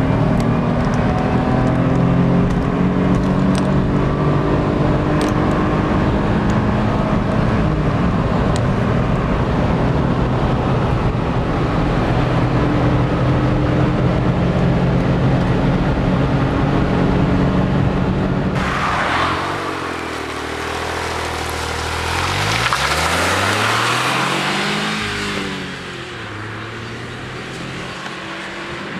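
Smart ForTwo's 84 PS 1.0-litre turbocharged three-cylinder engine heard from inside the cabin under sustained full acceleration at high speed, a steady engine drone. About two-thirds of the way through it gives way to the roadside: wind noise and two vehicles passing by, each rising then falling in pitch.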